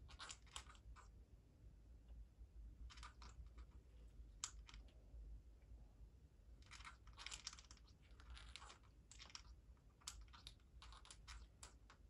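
Parrots grinding their beaks: faint, dry crunching in short runs of quick clicks, several times over. Beak grinding is the sign that the birds are settled and falling asleep.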